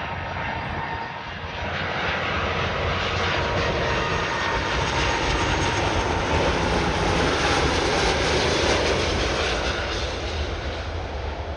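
Airbus A330-300 freighter's twin Rolls-Royce Trent 700 turbofans on approach, a jet rush with a faint whine that swells about a second and a half in, peaks past the middle, then eases slightly as the aircraft passes.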